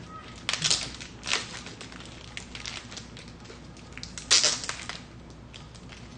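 Thin plastic packaging crinkled and rustled by hand in a few short, loud bursts, the loudest about four seconds in.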